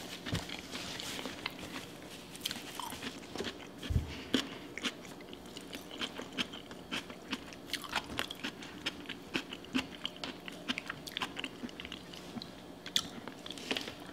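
Close-up wet chewing and mouth clicks of a person eating seafood boil in sauce, a quick irregular patter of small clicks with a few louder bites.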